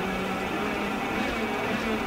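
Detroit Diesel 12V92TA twin-turbo two-stroke V12 diesel running steadily, just caught on a cold start at about 1 °C with no glow plugs or cold-start aid fitted.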